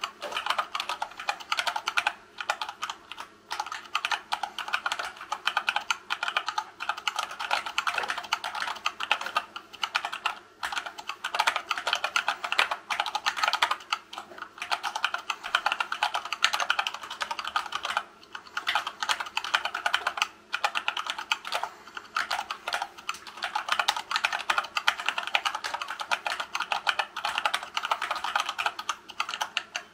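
Fast continuous typing, about 60 words a minute, on a hand-wired Dactyl Manuform split keyboard with silicone-lubed Gateron Brown tactile switches in a wood-filament case. The keystrokes come in a dense stream, broken by a few brief pauses.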